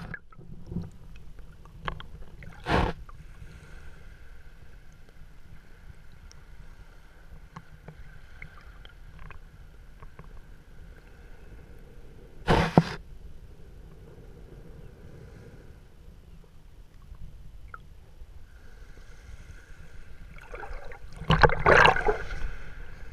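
Underwater sound heard through a GoPro Hero3's waterproof housing resting on a sandy bottom in shallow water: a muffled low rumble with a faint steady hum and scattered small clicks. There are loud knocks about three seconds in and again around thirteen seconds, and a louder cluster of knocks and scrapes near the end.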